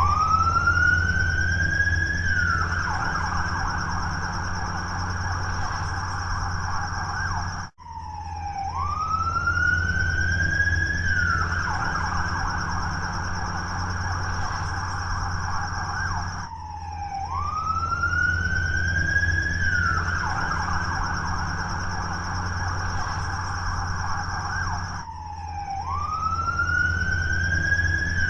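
Police siren sounding in a repeating cycle: a wail rising in pitch over about two seconds, then a fast warble for about five seconds, three times over, with a steady low hum beneath. A brief dropout comes between the first and second cycles.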